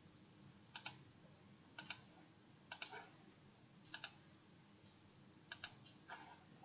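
Faint computer mouse clicks, mostly quick doubled ticks of a button pressed and released, about once a second.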